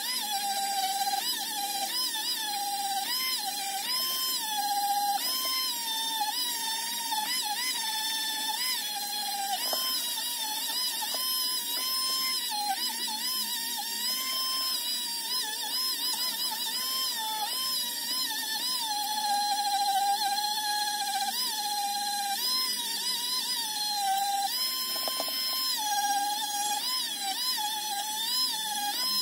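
Rotary tool with a small wire brush, its motor whining at a high pitch that sags each time the brush is pressed onto a die-cast metal part and climbs back when it eases off, again and again.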